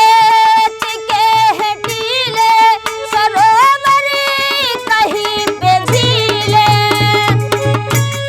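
A woman singing an Indian folk song over a steady drum rhythm, with a held accompanying note underneath. The drumming grows stronger in the last few seconds.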